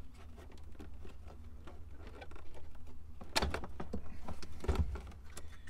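Plastic clicks and knocks as the wiring-harness connectors are unclipped from the back of a 1992–95 Honda Civic gauge cluster and the cluster is handled free, with two louder knocks a little past halfway.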